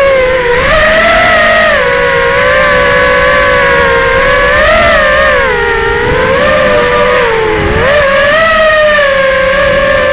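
FPV quadcopter's motors whining steadily, the pitch dipping and rising again and again as the throttle changes.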